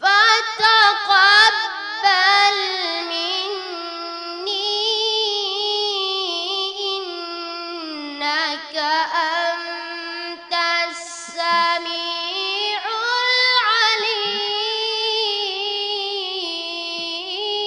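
A boy's high, unbroken voice reciting the Quran in melodic tajweed style, drawing out long ornamented notes, with a couple of brief pauses between phrases.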